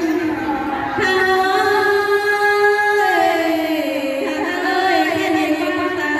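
A woman singing a Thái ethnic folk song (hát Thái) into a microphone, drawing out long notes; a steady held note about a second in steps down to a lower, falling line near the middle.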